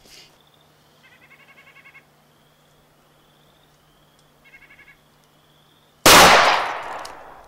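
A single shot from a Smith & Wesson Model 10 .38 Special revolver with a 4-inch barrel, firing Buffalo Bore 158-grain +P 'FBI load' into ballistics gel, about six seconds in: a sharp crack that trails away over about a second and a half. Before it, a bird trills twice.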